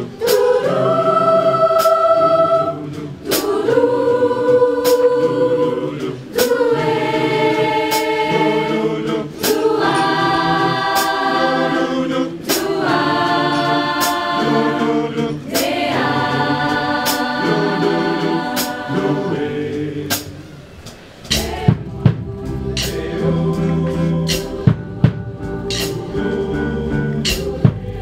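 A large mixed choir singing in full voice. About twenty seconds in, the singing gives way to instrumental music with a deep bass line and sharp drum hits.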